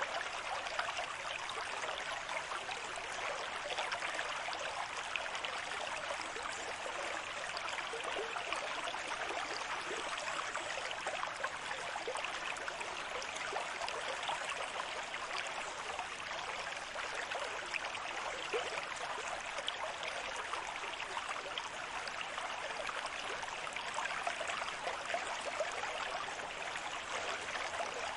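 Steady running water: an even wash with fine crackling through it, holding one level without the rise and fall of separate waves.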